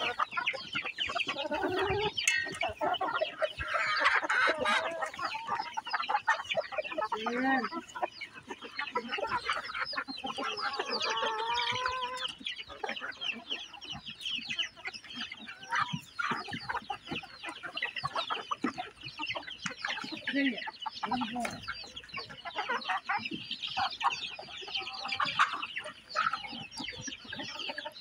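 A large flock of hens clucking and squawking continuously as they crowd in and peck at rice. A longer drawn-out call stands out about ten seconds in.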